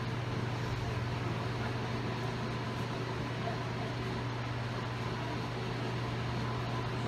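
Steady low hum over an even hiss: room tone with no distinct events.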